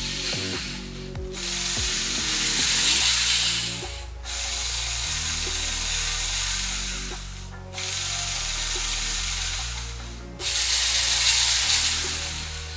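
Lego Mindstorms NXT servo motors whirring as they turn the plastic cube layers of the clock, in four stretches of about three seconds each with brief gaps, over quiet background music.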